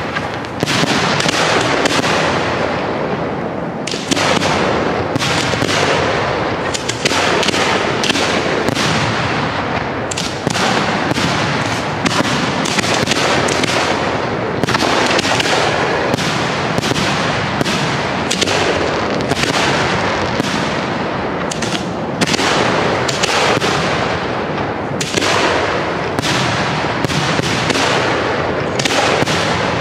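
Display fireworks (1.3G aerial shells) bursting overhead in rapid, nearly continuous succession: a dense barrage of bangs with hardly a pause.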